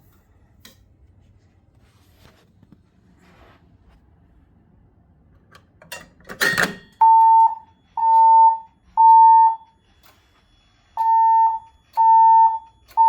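Siemens Desigo fire alarm system sounding its evacuation tone in the temporal-three pattern: three half-second beeps about a second apart, a pause, then three more, the standard signal to evacuate. A short noisy burst comes just before the beeps start, about six seconds in.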